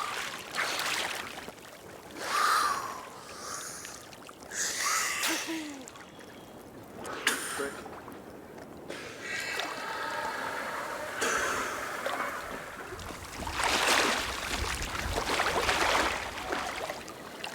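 A freediver at the surface after a deep cold-water dive, taking a series of heavy, gasping recovery breaths a couple of seconds apart, with water splashing around them.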